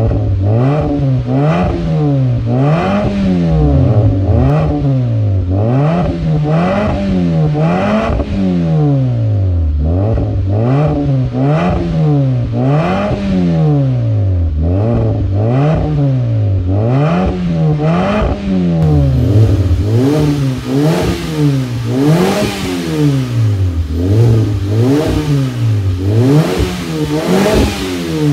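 Hyundai Veloster's four-cylinder engine revved over and over in park through an aftermarket catback exhaust, the revs climbing and dropping about every second and a half.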